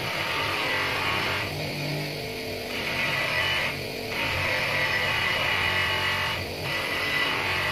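Electric bench polishing motor with a buffing wheel spinning against a steel shotgun barrel, a steady hissing rub that drops out briefly three times as the barrel shifts on the wheel, under background guitar music.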